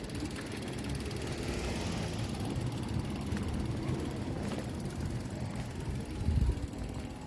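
Outdoor town street ambience: a steady low rumble with a brief, louder low thump about six seconds in.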